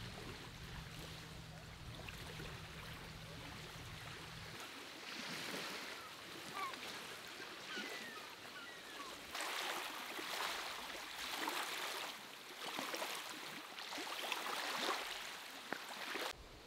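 Small lake waves washing onto a gravel shore in repeated soft surges, about one every second and a half, growing more distinct from about halfway through. A low rumble sits under the first few seconds.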